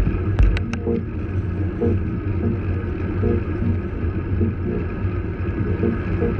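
Electronic background music with a slow, steady beat and sustained synth tones, over a low, steady rumble.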